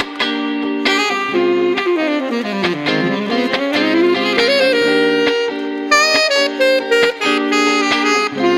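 Saxophone playing a jazzy solo line over electric guitar chords, with a run that sweeps down low and climbs back up about three seconds in.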